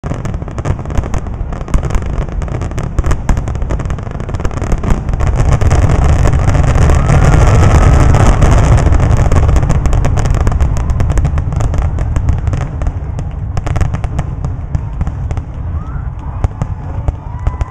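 Aerial fireworks display: a rapid, overlapping barrage of shell bursts and crackles over a deep rumble, building to its densest and loudest about halfway through, then thinning out toward the end.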